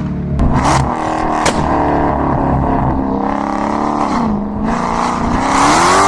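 Dodge Hellcat's supercharged 6.2-litre Hemi V8 accelerating hard under full throttle. Its pitch climbs, drops briefly about four seconds in at a gear change, then climbs again to the loudest point near the end. Two sharp cracks come early on the first pull.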